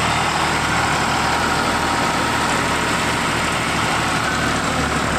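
Diesel tractor engines running steadily, a low even drone with no change in pace.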